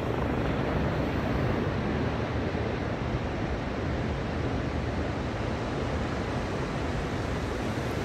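Ocean surf breaking on a sandy beach: a steady, even rush of waves with no distinct individual crashes.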